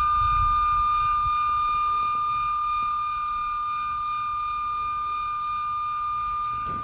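Natural gas escaping from the open end of a newly installed CSST gas line with a steady, high-pitched whistle, as the gas is first let through the line.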